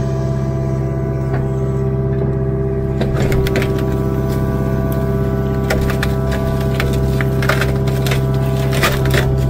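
Kubota KX057-4 mini excavator's diesel engine running steadily under load, with repeated snapping and cracking of brush and small trees from about three seconds in as the bucket and thumb push through them.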